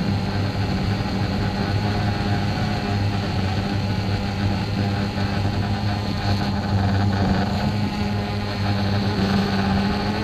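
DJI Phantom 2 quadcopter's four motors and propellers humming steadily as it flies low and descends toward the ground, heard through the camera mounted under it.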